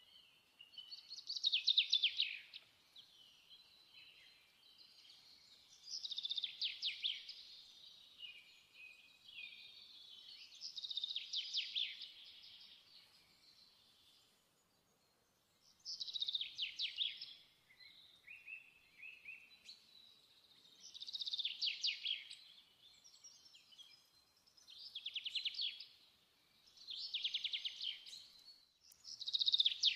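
A songbird singing: short phrases of rapid chirps and trills, repeated every few seconds, with a brief pause about halfway through.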